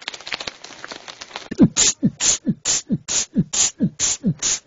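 Vocal beatboxing: about a second and a half of rapid crackly clicks and hiss, then a steady boom-tss beat. A falling bass-kick sound alternates with a hissing snare sound, about two of each per second.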